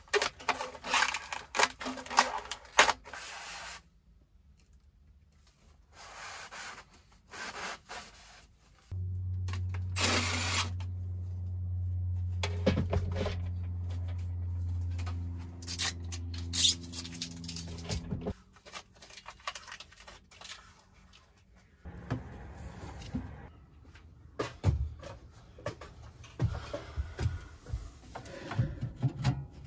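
Stainless steel stovepipe sections being handled and fitted onto a wood stove's flue collar: scattered metal clinks, knocks and rubbing. A steady low hum runs for several seconds in the middle.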